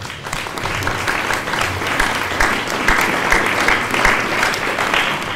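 Audience applauding: a dense patter of clapping that swells in the first second and tails off near the end.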